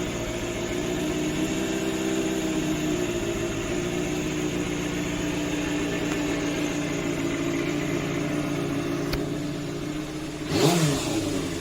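Kawasaki Balius 250's inline-four engine idling steadily, then one quick throttle blip near the end, its pitch rising and falling back.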